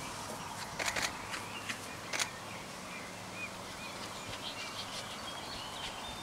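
Open-air background with faint small-bird chirps and a few short rustles or ticks in the first couple of seconds.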